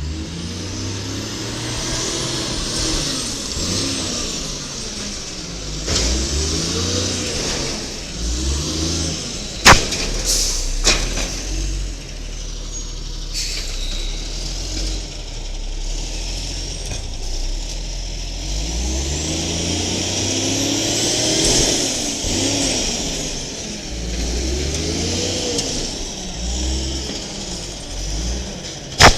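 Automated side-loader garbage truck's Cummins L10G natural-gas engine revving up and dropping back again and again, under a steady high hiss. A sharp bang about ten seconds in is the loudest sound, with a smaller one just after and another at the very end.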